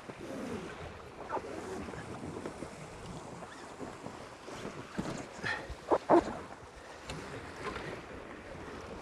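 Water rushing and splashing along the hulls of a Tornado catamaran sailing fast in strong wind, with wind buffeting the microphone. Two sharp hits stand out about six seconds in.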